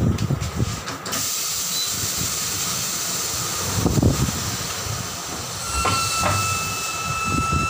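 Compressed air hissing steadily into a 17.5-inch tubeless truck tyre on a tyre changer while its beads are being seated, after a few low knocks from handling the tyre. Near six seconds a thin steady whistle joins the rush of air.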